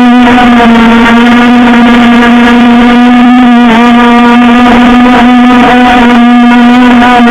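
RC powerboat's motor running flat out at a steady high pitch, very loud and close. The pitch dips slightly a few times.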